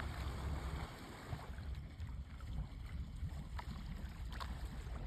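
Uneven low rumble of a boat on the water with wind on the microphone, and a few faint clicks.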